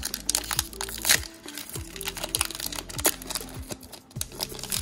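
Foil wrapper of a Pokémon trading-card booster pack crinkling and crackling in several spells as it is torn open by hand and the cards are slid out, over background music.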